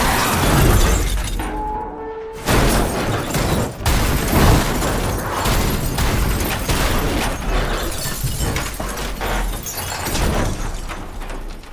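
Crash of a police patrol SUV rolling over: a rapid run of metal impacts and shattering glass, with music underneath. The crashing starts after a brief lull about two seconds in and dies away near the end.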